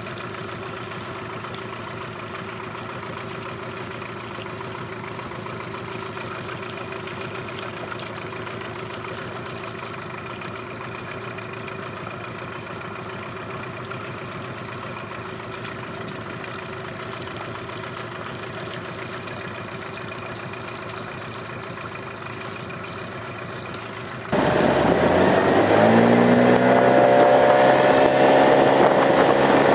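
Yamaha 8 two-stroke outboard motor pushing a loaded inflatable boat, running steadily at low speed. Near the end it suddenly gets much louder and its pitch climbs as the throttle opens and the boat speeds up.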